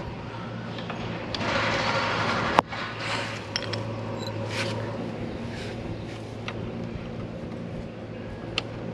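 Hand tools clicking and scraping against motorcycle rear disc-brake parts during a brake-pad change: a few sharp metallic clicks, one louder one a few seconds in, over a steady low hum.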